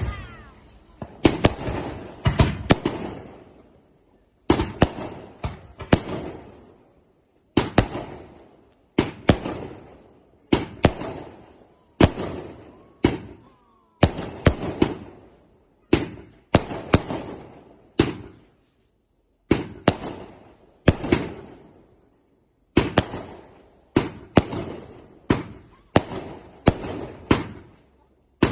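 Fireworks exploding in the air: sharp bangs in quick clusters every second or two, each trailing off in an echoing rumble, with a brief whistle now and then.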